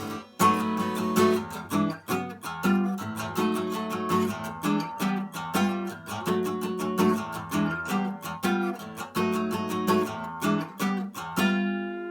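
Acoustic guitar strummed in a steady rhythm, then a last chord left to ring out and fade near the end.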